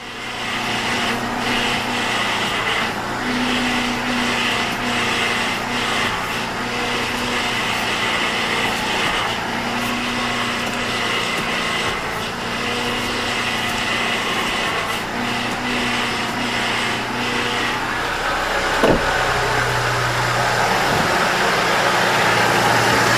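2007 Toyota FJ Cruiser's 4.0-litre V6 idling while the steering is turned back and forth to bleed air from a newly replaced power steering pump. A steady engine hum, with a higher tone that swells in and out every few seconds.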